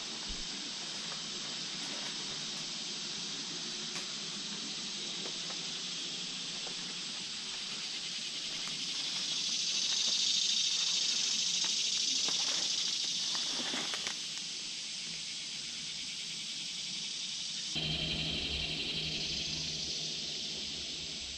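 Chorus of insects in summer woods: a steady, high-pitched hiss that swells louder around the middle and then eases off, with a few faint crackles. A low rumble joins near the end.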